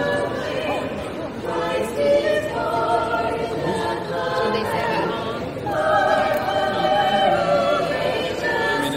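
Vocal group singing held chords in harmony, moving to a new chord every second or two, some notes wavering.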